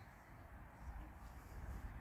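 Faint outdoor background: a low rumble and a light even hiss, with no distinct event.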